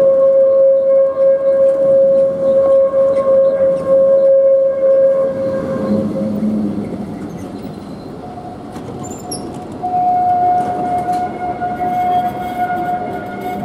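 Tatra KT8D5 articulated tram standing at a stop, its electrical equipment giving a steady whine over street noise. About five seconds in the whine fades, and a little later a slightly higher whine starts up.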